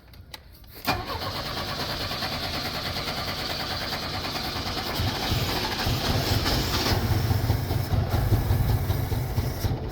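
A 1983 Chevrolet Chevette being cranked on its starter from about a second in. The engine catches and runs sputtery and uneven, getting louder towards the end, while the starter's high whir stops partway through. It is a hard start on a car with a misfire that needs mechanical work.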